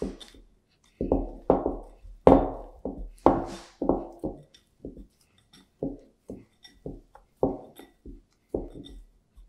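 Hand squeezing and folding sourdough dough in a glass bowl, working the leaven into the autolysed dough: a rapid, irregular run of short wet slaps and squishes, about two a second.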